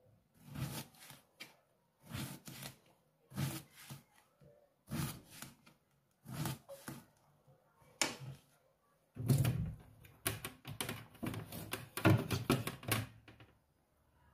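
Kitchen knife cutting through peeled eggplant and knocking on a plastic cutting board, a cut about every second or so at first, then a quicker, louder run of cuts for the last few seconds.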